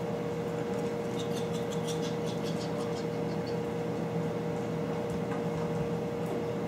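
Steady mechanical hum of a small room, with a quick run of light clicks about a second in from puppies' claws on the vinyl floor.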